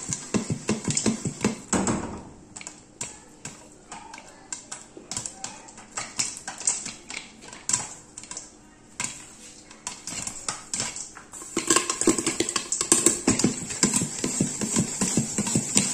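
Popcorn popping in butter in a covered non-stick kadhai with a glass lid. The pan is shaken on the burner at the start and again for the last few seconds, giving a dense rattle of corn and kernels inside; in between it rests and the pops come as scattered sharp cracks.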